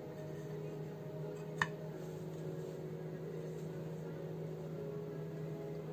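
A steady low machine hum with a few held tones, and a single short click about a second and a half in.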